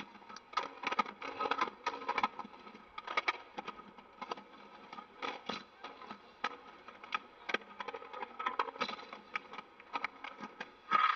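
A quiet, irregular run of sharp clicks and taps, about two to three a second, from the marching band on the field during a soft percussive passage.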